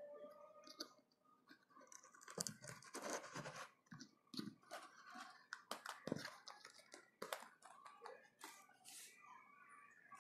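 Faint crackling, scraping and scattered clicks of a white plastic water-filter housing being unscrewed and handled by hand.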